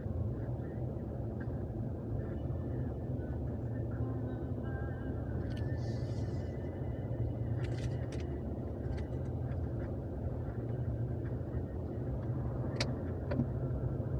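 Jeep Wrangler Rubicon driving at low town speed, heard from inside the cabin: a steady low engine and road drone, with a few brief clicks.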